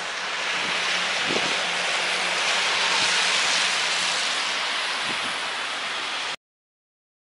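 Steady outdoor hiss with a faint low hum, then cut off suddenly to dead silence about six seconds in.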